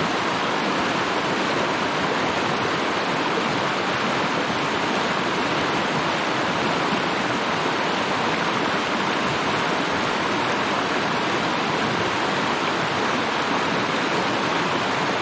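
Shallow, fast mountain creek rushing over rocks and small rapids: a steady, even rush of water.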